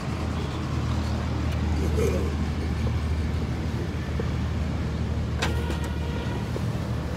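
A steady low rumble, with one sharp metallic clink about five seconds in: a steel ladle striking a steel serving bowl.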